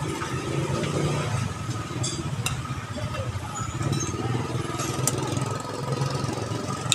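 Curry puffs deep-frying in a wok of hot oil, a steady sizzle, with a couple of sharp clinks of a metal skimmer against the wok, over a low steady rumble.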